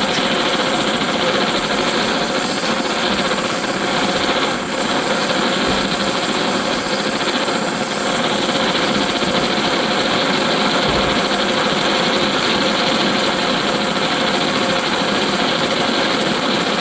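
Antique paraffin blowlamp's pressurised burner running with a steady, rushing noise that dips briefly twice. It is burning a bit intermittently.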